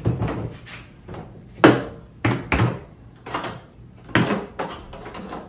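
Hard plastic waterproof case being set down on a truck's engine bay and handled: a string of sharp plastic clunks and clicks, about eight in all, the loudest about one and a half seconds in.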